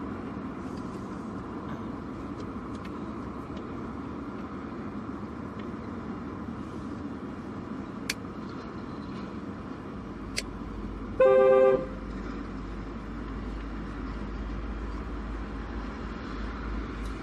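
Renault 12's car horn giving one short blast of under a second, about eleven seconds in, as the horn wire is found by trial and error. Two sharp clicks come a few seconds before it.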